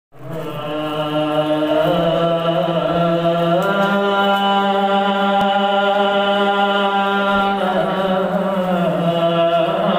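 Male voice chanting a Pashto rubai in long, drawn-out held notes. The pitch steps up twice in the first few seconds and drops back about three-quarters of the way through.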